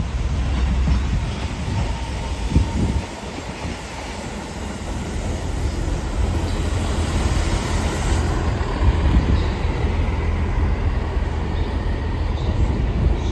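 Transport for Wales Class 158 diesel multiple unit running slowly along the platform: a steady low diesel engine rumble with the noise of wheels on the rails, and a high hiss that builds for the first eight seconds or so and then fades.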